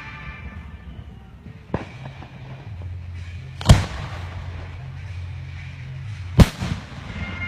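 Firework shells bursting: three sharp bangs, a smaller one a couple of seconds in, the loudest near the middle and another loud one past six seconds, over a low steady hum.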